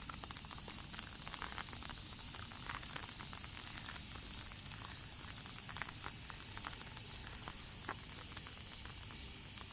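Steady rain falling, an even hiss, with scattered drips ticking irregularly on nearby surfaces.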